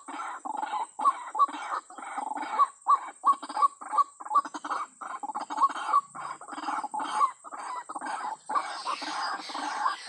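White-breasted waterhen (ruak-ruak) calling: a rapid run of short, harsh croaking notes repeated about three times a second, getting denser and harsher near the end.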